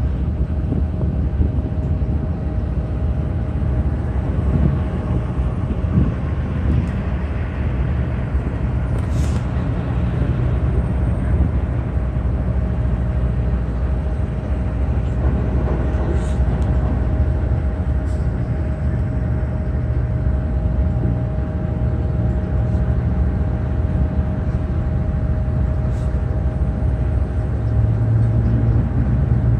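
Freight train of loaded flatcars rolling steadily past: a continuous low rumble of wheels on rail with a faint steady tone over it, and a few short sharp ticks here and there.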